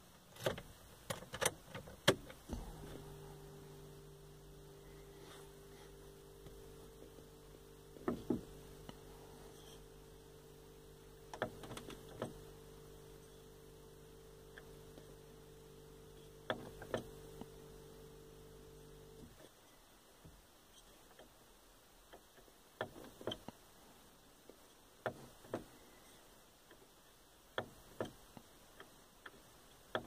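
Short plastic clicks of an Opel Vectra's climate-control buttons and rotary knob being pressed and turned, many times. A steady hum starts a couple of seconds in and cuts off suddenly a little past the middle.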